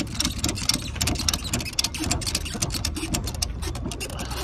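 Ratchet strap buckle being cranked tight over a timber load: a rapid run of ratchet clicks as the handle is worked back and forth, drawing the strap as tight as it will go.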